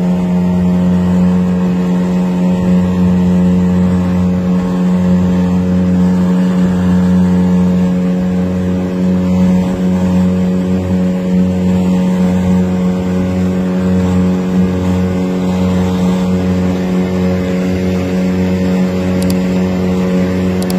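Boat engine running steadily at cruising speed: a loud, even drone with a lower hum that throbs on and off in the second half.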